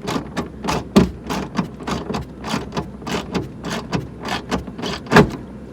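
Quick, irregular clicks and knocks, about three to four a second, from hand work on the inside of a car door as screws and small parts go back in.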